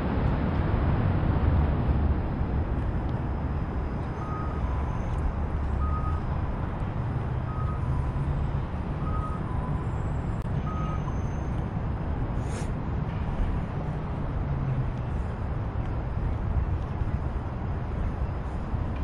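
Steady street-traffic rumble, with a vehicle's reversing alarm giving five short high beeps about a second and a half apart partway through. A single sharp click comes shortly after the beeps.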